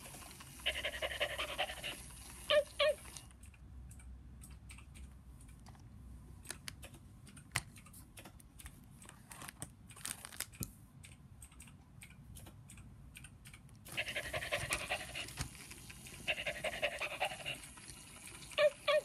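Animagic Scoot plush toy dog playing its electronic panting sound, with short paired yaps about two and a half seconds in and again at the end. In between, several seconds of scattered clicks and taps, then the panting starts up again.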